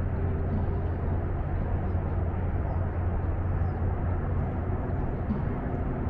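Steady rumble of highway traffic, with a strong low hum underneath and no breaks, plus a few faint, short high chirps over it.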